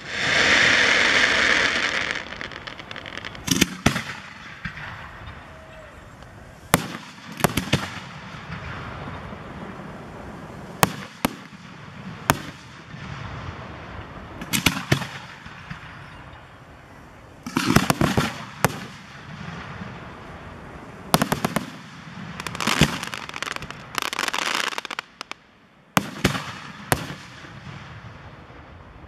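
Aerial fireworks display: a loud rushing hiss for the first two seconds, then a long run of sharp shell bursts at irregular intervals, with dense clusters of crackling reports in several stretches.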